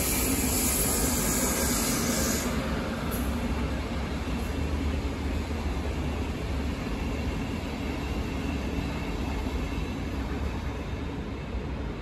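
An ÖBB Railjet passenger train runs past on a far track, a steady rumble of wheels on rail. A high hiss sounds over the first couple of seconds.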